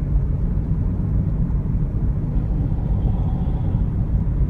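Car driving on the road, a steady low rumble of road and engine noise.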